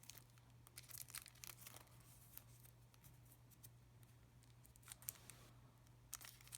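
Faint handling of plastic retail packaging: scattered small clicks and crinkles, over a low steady hum.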